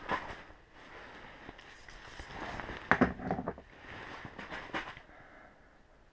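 Rustling and handling noises, intermittent, with a sharp knock and clatter about three seconds in, the loudest sound.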